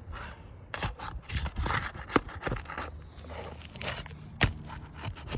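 Scraping and rubbing on asphalt roof shingles, broken by several sharp clicks and knocks, the loudest near the end, as a shingle is worked loose to get at its nails.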